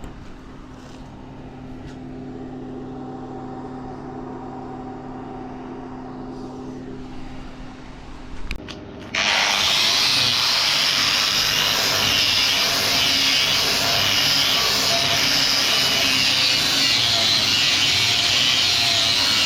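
A steady machine hum, then about nine seconds in a stick-welding arc is struck and burns with a steady loud crackling hiss, the sound of the electrode laying a bead.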